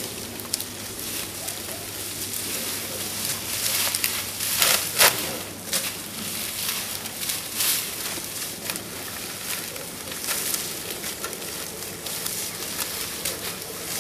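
Rustling and crackling of cut sugarcane stalks being handled and loaded onto a truck, with scattered sharp cracks over a steady hiss; a few louder knocks come about five seconds in.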